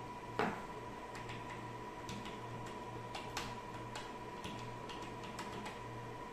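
Small clicks of a rotary channel-selector switch being turned with a flat-blade screwdriver: one sharper click about half a second in, then a run of light, irregular ticks.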